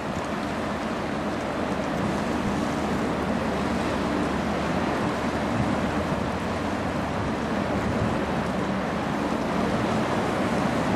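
Wind buffeting the microphone over choppy river water, with a low steady drone underneath from the passing bulk carrier.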